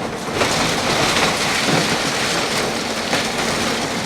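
Heavy machinery demolishing a building: a loud, continuous din of engine noise mixed with crumbling and clattering masonry.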